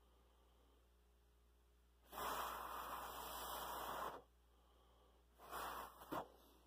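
A person breathing out close to the microphone: one long exhale of about two seconds, then a shorter one near the end, followed by a small click.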